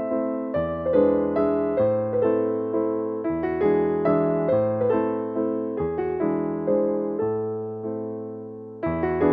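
Background music: a piano playing a gentle melody, its notes struck one after another and fading, with a short lull near the end before the next phrase starts.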